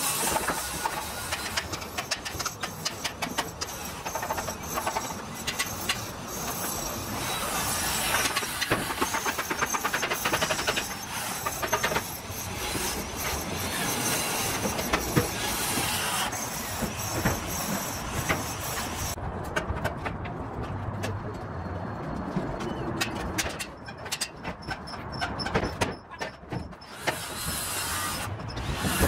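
Construction site noise: a steady hiss with many metallic clanks and knocks. The hiss drops away abruptly about two-thirds through.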